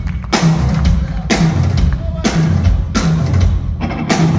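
Live rock band with drum kit, bass and electric guitar playing loud, heavy accented hits about once a second, each with a cymbal crash over a driving bass line.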